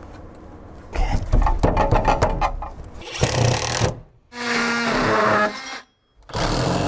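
A handheld power tool running in several short bursts with abrupt breaks between them, one burst carrying a steady hum.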